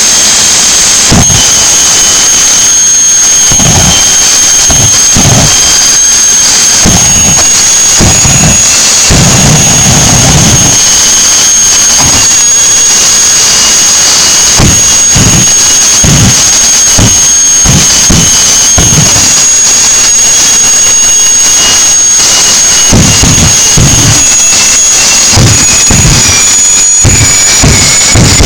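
Small jet engine mounted on a ride-on mower running continuously and very loud: a steady high-pitched whine over uneven low rumbling, with a lower tone that sags slightly in the last few seconds.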